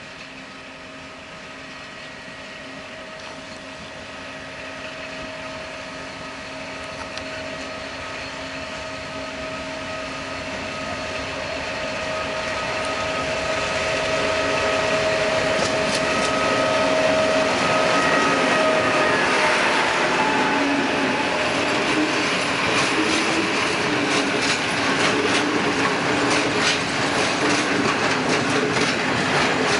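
Class 232 'Ludmila' diesel locomotive approaching with a steady engine drone and whine that grows louder, passing about two-thirds of the way through. Then open freight wagons roll by with a dense rumble and many sharp clicks from the wheels on the rails.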